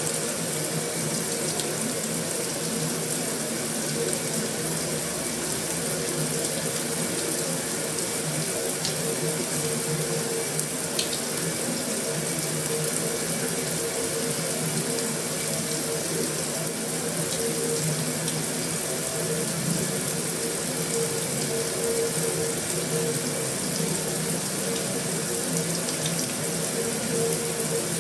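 Heavy rain falling steadily on a metal roof, an even, unbroken wash of noise with a few faint ticks of individual drops.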